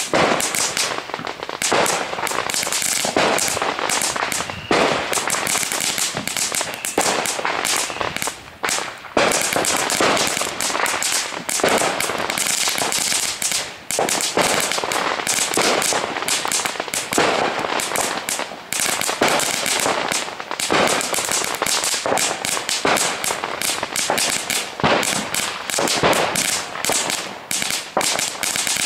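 Small ground firework burning and crackling without a break, a dense stream of rapid sharp pops and crackles.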